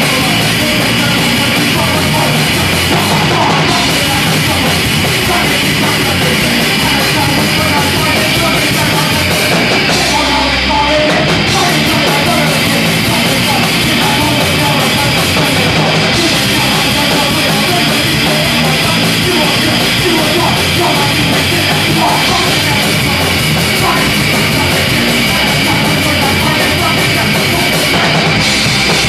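Live rock band playing: electric guitar, bass guitar and drum kit, loud and without a break.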